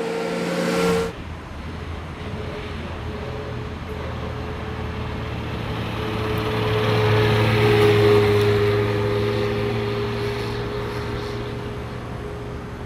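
Pre-war open roadster's engine running as the car drives past, swelling to its loudest about eight seconds in and then fading away. A louder engine sound cuts off abruptly about a second in.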